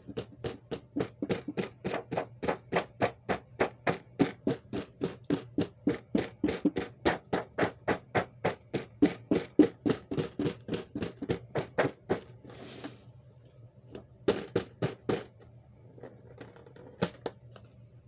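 A rapid, even run of sharp clicks or taps, about four a second, lasting about twelve seconds. It breaks off into a short rustle, then three more clicks and a few faint ticks.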